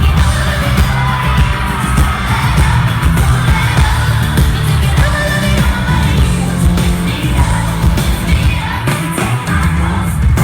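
Live pop song played loud over a concert PA: a heavy, steady bass beat with women singing, and the audience yelling along.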